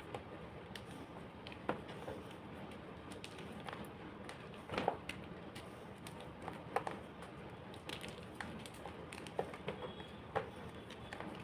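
Homemade gym chalk being crushed: scattered, irregular short crunches and crackles over a low steady hiss.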